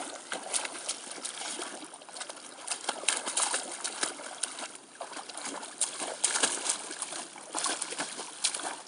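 An American Staffordshire Terrier wading in shallow water and splashing: a run of irregular small splashes and sloshes.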